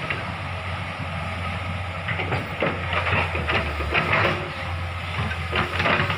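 Komatsu hydraulic excavator's diesel engine running steadily during land clearing, with irregular cracks and knocks as its bucket works through felled trees and brush.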